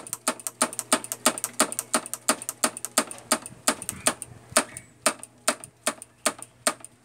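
Rapid, evenly spaced mechanical clicking, about five clicks a second, keeping a steady rhythm.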